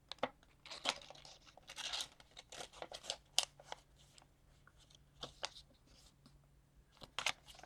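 Paper rustling and crinkling in short scrapes and crackles as a sheet of paper is folded and a flap is tucked into the pocket.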